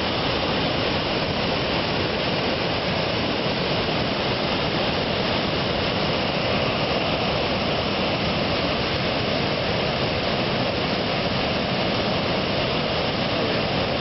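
Seka waterfall in flood, a wide curtain of water pouring over a rock ledge into a churning river: a steady, loud rush of falling water.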